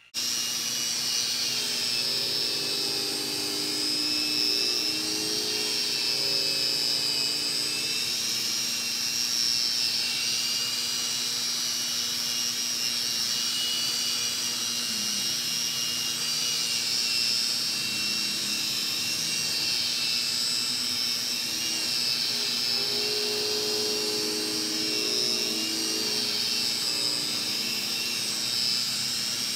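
Rotary polisher with a wool pad running steadily against a car's oxidized single-stage lacquer paint, cutting away the oxidation: a steady high-pitched whine that starts abruptly.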